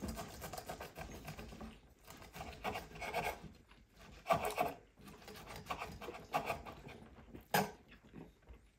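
A knife saws through the charred crust of a bone-in ribeye on a wooden cutting board in irregular rasping strokes, with one sharp click near the end.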